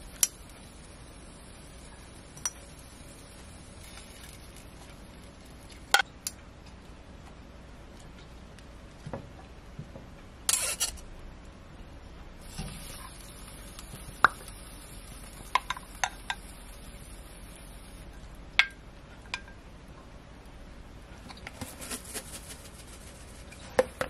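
Serving utensils clinking and tapping against a ceramic dish as food is plated: scattered sharp clinks a few seconds apart, with a short cluster of soft taps near the end.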